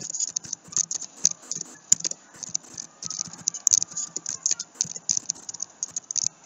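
Typing on a computer keyboard: a fast, irregular run of key clicks.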